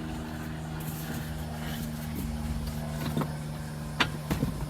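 A steady low motor hum, with a few sharp knocks over it, the loudest about four seconds in.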